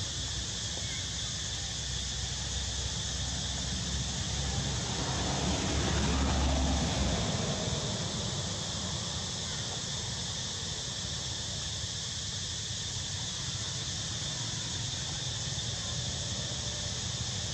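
Steady outdoor insect drone with a low wind rumble on the microphone. The rumble swells in a gust about five to seven seconds in.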